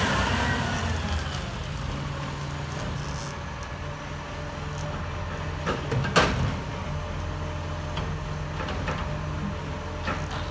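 Side-loading garbage truck's engine dropping back from a rev to a steady idle, with one sharp metallic clank about six seconds in and a few light clicks.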